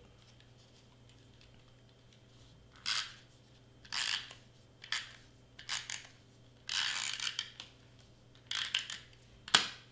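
Double-sided tape runner drawn along cardstock tabs in short strokes, each a brief rasp of its mechanism as it lays tape. About seven strokes come roughly once a second, starting about three seconds in, the longest just before seven seconds, with one sharp click near the end the loudest.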